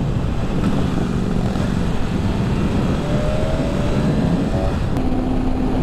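BMW S1000RR's inline-four engine running at riding speed under a dense rush of wind and road noise. The engine note climbs slowly a little past the middle, then settles into a steadier tone about five seconds in.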